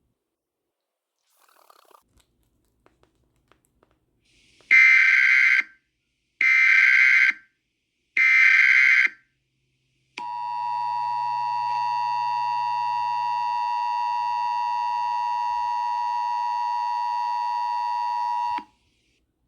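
Emergency Alert System tones: three buzzy data bursts of about a second each, the SAME header, then the steady two-tone attention signal held for about eight seconds before it cuts off.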